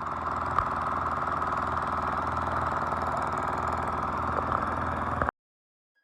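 An engine running steadily with an even pulse, cut off abruptly near the end.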